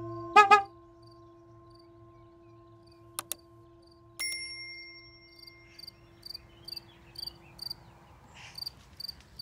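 Crickets chirping in a steady rhythm, about two chirps a second. Near the start come two sharp ringing strikes over a sustained ringing tone that fades away over several seconds, and a single bright ding about four seconds in.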